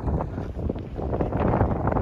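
Wind buffeting the microphone: a gusty, low rumble that swells and dips.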